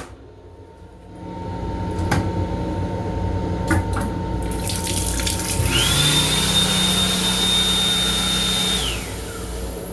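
Restroom sink water running with a few light knocks. About six seconds in, a small motor whines up, holds steady for about three seconds with a rush of air or water, and winds down.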